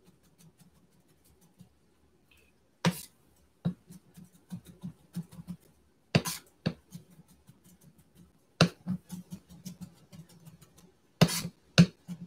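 Chef's knife chopping pickle slices on a wooden cutting board: sharp knocks of the blade against the board, a louder one every two to three seconds followed by runs of quicker, lighter taps.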